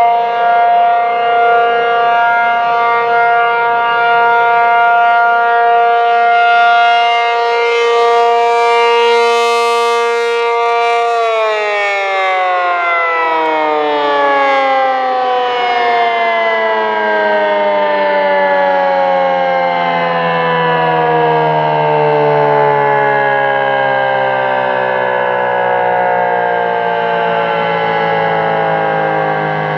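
ACA Penetrator-50 (P50) rotating electromechanical civil defense siren sounding for its monthly test. It holds a steady single tone, then about eleven seconds in the power cuts off and the pitch slowly winds down.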